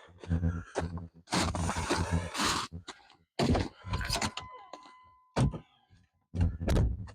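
Crunching footsteps and rustling in snow, a steady electronic tone lasting about a second around the middle, then a single sharp thunk of a truck door, followed by more crunching.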